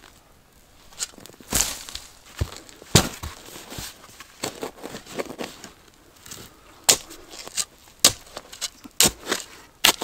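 A steel spade digging in stony soil: irregular sharp, crunching strikes as the blade is driven into the ground and earth is lifted out, coming more often in the second half.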